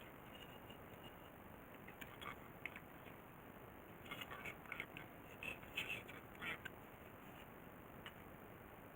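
A few light, irregular clicks and taps over a faint steady hiss, most of them bunched together from about four to six and a half seconds in.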